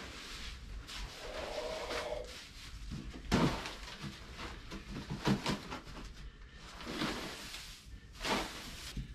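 Irregular knocks, bumps and scraping clatter of objects being handled and moved about, with a brief squeak-like tone about a second and a half in.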